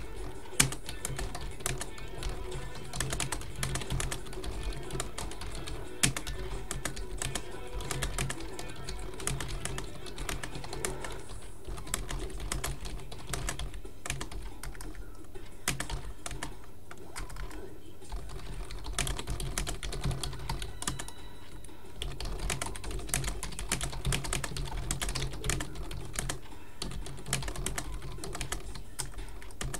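Typing on a computer keyboard: a dense, irregular run of key clicks, over background music.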